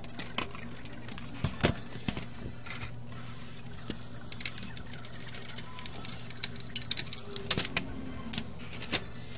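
Repeated sharp clicks and knocks of a PS5 console's plastic cover and metal shield being handled and turned over, most of them in the second half, over a steady low hum.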